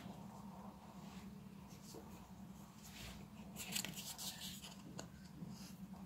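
Foam suction-cup darts scraping and clicking as they are pushed into the plastic barrel cylinder of a toy dart blaster, with a cluster of rubbing noises in the middle and single clicks near the start and end, over a low steady hum.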